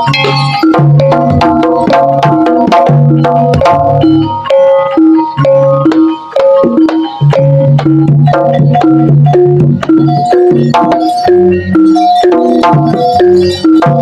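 Jaranan music played live: a gamelan-style ensemble of hand drums and tuned gongs and metallophones playing a fast, busy pattern of struck notes.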